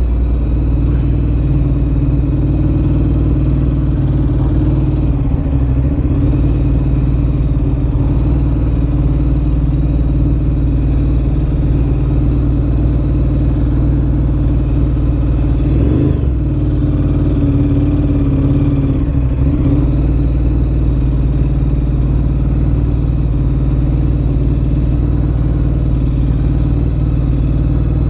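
Ducati Monster 1100 EVO's air-cooled V-twin running through a Termignoni exhaust, steady throughout, with a brief change in pitch about halfway through.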